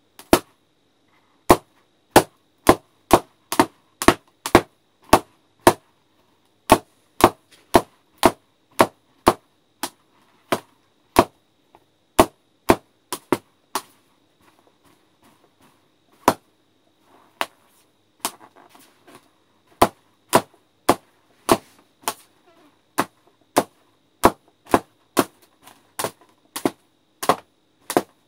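Party balloons popped one after another with a pin: dozens of sharp pops, often about two a second, with a short lull in the middle filled by faint rustling.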